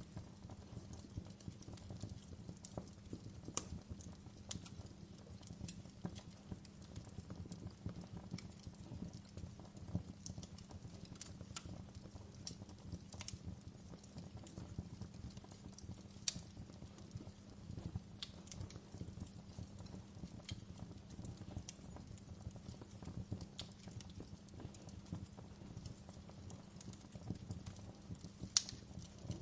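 Wood fire burning in a fireplace: a steady low flutter of flames with scattered sharp crackles and pops, two louder pops about halfway through and near the end.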